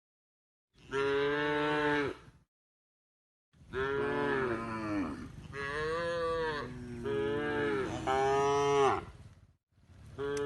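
Cow mooing: one moo about a second in, then a long run of moos that rise and fall in pitch from about three and a half seconds to nine and a half, and another moo starting near the end.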